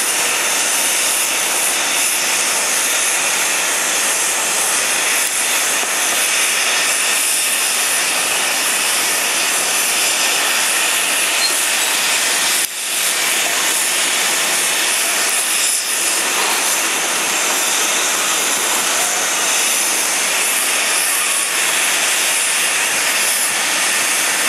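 Steady, loud jet-turbine hiss with no clear tones, dipping briefly about halfway through.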